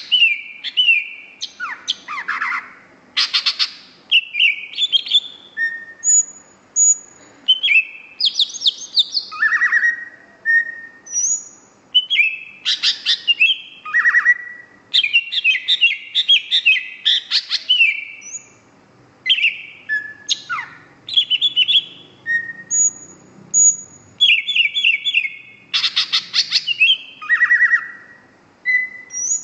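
Green leafbird (cucak hijau) in full song: a rapid, varied stream of whistled notes, fast trills and chattering phrases, broken by short pauses.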